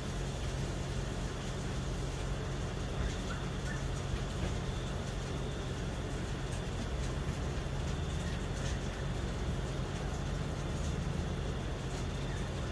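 Steady low city hum with distant traffic noise, even and unbroken; no thunder is heard.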